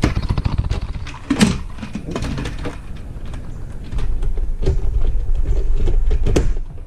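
Plastic clicks and knocks of a motorcycle helmet's clear face shield being fitted into its side pivot mechanism and the helmet handled, with one sharper snap about a second and a half in. A low rumble comes up in the second half, loudest between about four and six and a half seconds.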